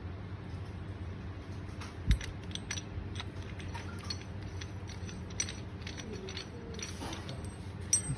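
Small metal hardware such as screws and slider parts clinking and rattling as they are handled, in scattered light clicks, with one dull knock about two seconds in.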